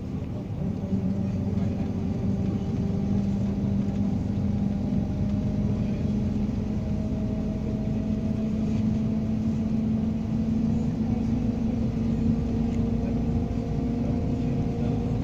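Engine hum and road noise of a moving road vehicle, heard from inside, the hum's pitch creeping slowly upward as the vehicle gathers speed.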